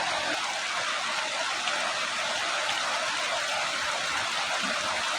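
Steady rushing of flowing water, an even hiss with no break or change.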